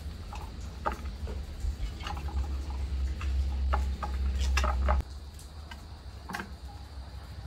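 Hand-plucking feathers from a scalded broiler chicken in a metal basin: scattered small clicks and soft tearing sounds. A low hum underneath stops suddenly about five seconds in.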